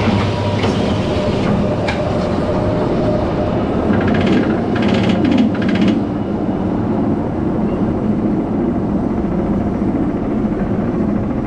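Roller coaster car being carried up its lift, the lift machinery and car running with a steady rumble and a brief run of rapid clicking about four to six seconds in.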